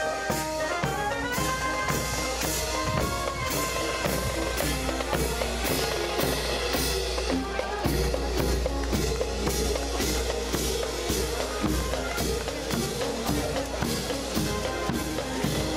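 Marching band playing on the move: snare and bass drums beat a steady march at about two beats a second, with brass sounding over them in the first few seconds.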